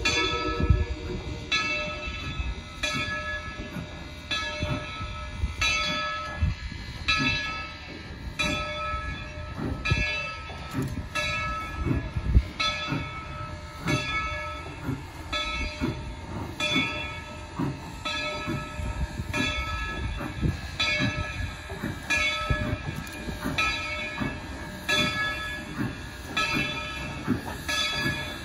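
Steam locomotive's bell ringing steadily, about one stroke a second, over the low rumble of the slowly moving train.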